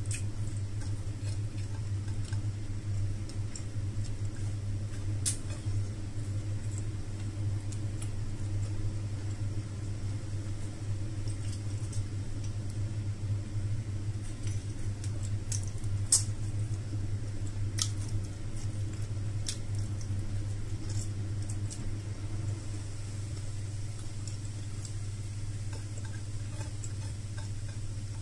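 A person eating rice and grilled okra with their fingers: chewing and mouth smacks, with scattered sharp clicks as food is picked off a plate. A steady low hum runs underneath.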